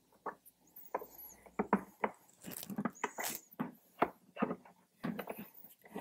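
Irregular clicks, taps and light scrapes of a Torx screwdriver driving the screws that hold a 6.5-inch speaker in a motorcycle fairing speaker pod.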